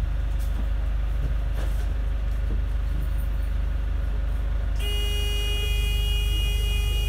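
Bus running, a steady low rumble heard from inside. About five seconds in, a steady high-pitched tone with many overtones sets in and holds for about two seconds.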